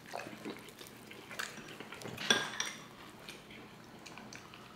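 People chewing and crunching crispy toasted quesadillas and crunchwraps, with scattered short crackles as the tortillas are bitten and torn apart. The sharpest crackle comes about two seconds in.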